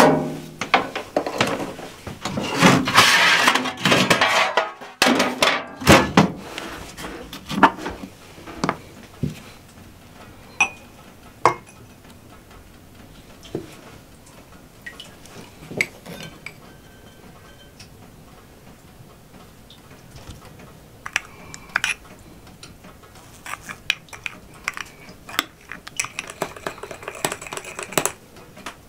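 Kitchen work sounds: bowls, utensils and glassware knocking and clinking on a table as cake ingredients are handled, with scattered sharp clicks and a few brief ringing clinks. A burst of rushing noise fills the first few seconds.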